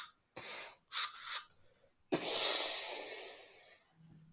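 Gunfire imitated with the mouth: two short, hissing shots about half a second apart, then a sharp blast about two seconds in that trails off slowly over nearly two seconds.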